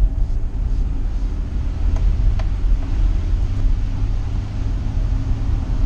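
Steady low rumble of engine and road noise inside a moving cargo van's cab, with two faint clicks about two seconds in.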